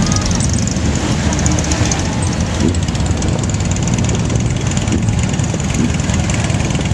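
Motorcycle engine running steadily, heard from the pillion seat, amid a column of other motorcycles riding slowly.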